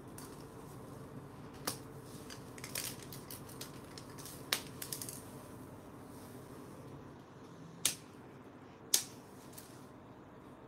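Scattered sharp clicks and taps, half a dozen or so, the loudest two near the end: scissors working on plastic weaving strips and hand tools set down on a hard tile floor.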